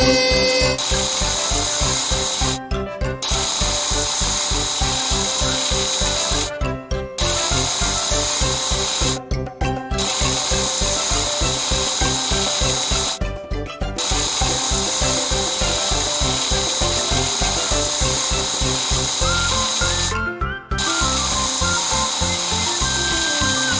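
Cartoon power-tool sound effects, a steady buzzing drill and sander, over background music with a fast steady beat. Both cut out briefly several times.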